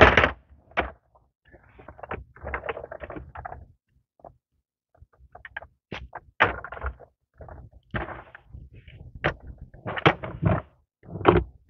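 A plastic mechanic's creeper set down hard on concrete with a sharp clack at the start, followed by irregular knocks, clatters and scraping as it is handled and a person kneels down beside it.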